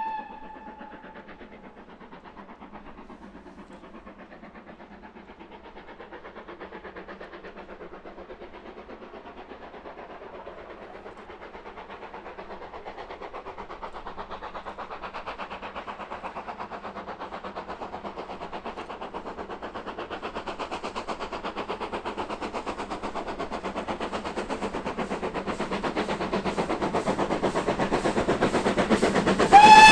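Steam locomotive working a train, its rapid exhaust beats growing steadily louder as it approaches. Its whistle starts blowing at the very end.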